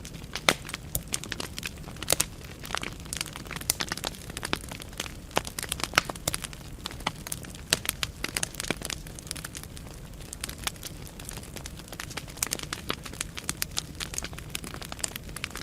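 Wood fire burning in a fireplace: a steady run of sharp irregular crackles and pops from the burning logs over a low rumble of flame.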